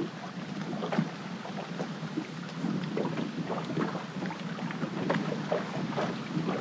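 Wind noise on the microphone and choppy water slapping irregularly against a fishing boat's hull. The sound is heavily processed by noise reduction to tame the wind.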